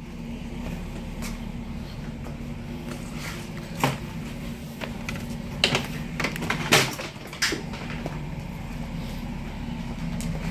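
Parts and a pneumatic hose being handled in a box: a few sharp clicks and clatters about four to seven seconds in, over a steady low hum.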